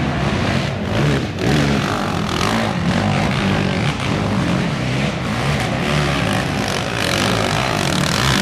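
Racing quad (ATV) engines revving hard under load as they climb a steep dirt hill, the pitch rising and falling with the throttle.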